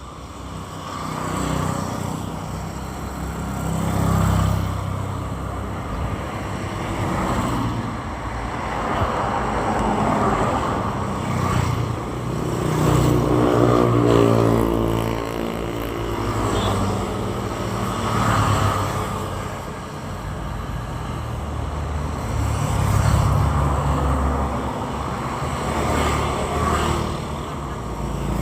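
Road traffic: cars and motorcycles passing one after another, each swelling and fading, with the loudest pass about halfway through.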